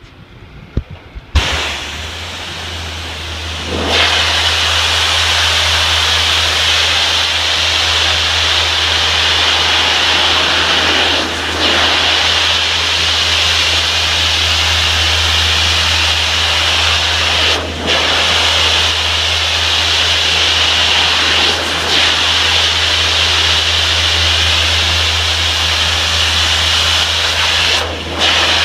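Pressure washer running: a steady motor hum comes on after a few clicks, then the high-pressure water spray hisses continuously from about four seconds in, cutting out briefly four times as the trigger is let go.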